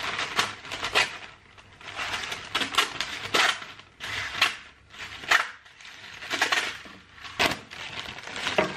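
Baking paper crinkling and tearing as it is cut with a knife, then a plastic food wrapper rustling. The sound comes in a run of short, uneven crackles and rips.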